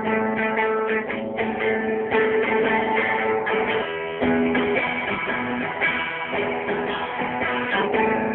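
A guitar being played, strummed and plucked chords with held notes, changing chord about four seconds in. It is recorded on a mobile phone's microphone, so it sounds dull, with the top treble missing.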